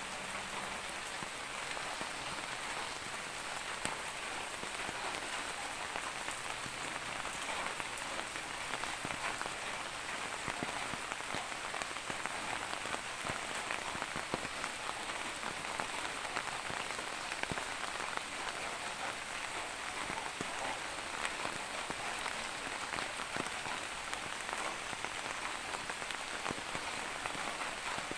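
Steady rain falling, a dense hiss with many small drops pattering on surfaces.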